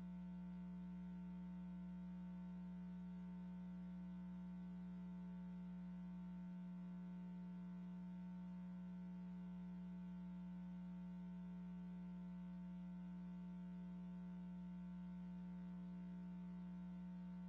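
A steady electrical hum: one low tone with fainter higher tones stacked above it, and no other sound.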